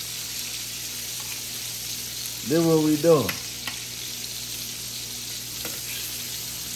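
Ribeye steaks sizzling steadily as they sear, before being flipped. About two and a half seconds in a brief bit of voice rises over the sizzle, with a few light clicks.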